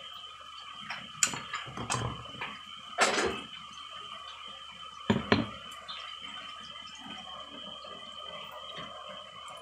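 Kitchen clatter: a few knocks, then a lid clanking down twice onto a steel wok about five seconds in, over a faint steady high hum.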